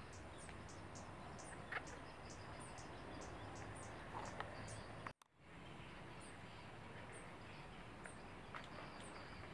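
Faint outdoor ambience: short high chirps repeating a few times a second over a thin steady high tone, with two or three brief faint calls in between. The sound cuts out for a moment about five seconds in.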